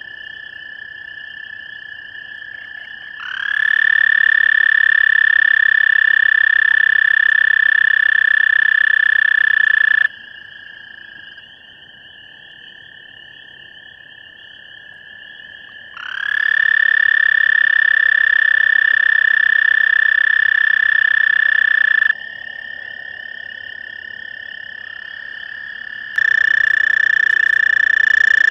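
Male American toad giving its long, steady musical trill, three times: about seven seconds from a few seconds in, about six seconds from midway, and a third starting near the end. Each trill swells up briefly at its start. A fainter chorus of frog trills carries on in the gaps.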